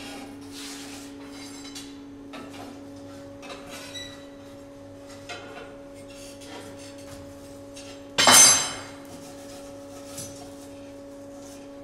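Metal clinks and scrapes as a hot steel bar is bent with tongs on a steel workbench, over a steady machine hum; about eight seconds in, one loud ringing clang of metal striking metal.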